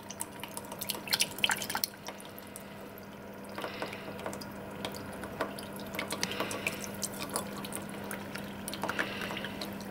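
Filtrate dripping from a filter funnel into a plastic beaker in many small, irregular drips as muddy water seeps through the filter paper, with liquid poured into the funnel from a glass beaker about three and a half seconds in and again near the end. A low steady hum sits underneath.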